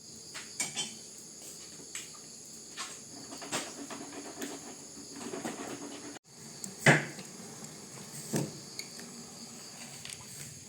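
Insects, crickets or similar, trilling steadily in several high tones, with scattered knocks and thuds of work, the loudest about seven seconds in. The sound drops out for an instant about six seconds in.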